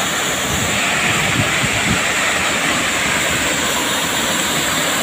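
Hot-spring waterfall pouring into a rocky pool, a steady loud rush of water, with splashing from someone wading through it.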